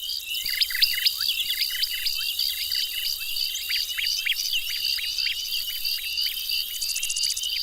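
A busy chorus of quick, high, falling chirps over a steady high trill, like birds and crickets calling together. It fades in at the start.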